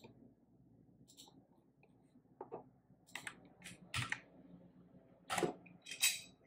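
Several short, irregular clicks and rustles, about six of them: a computer mouse being clicked and moved at a desk.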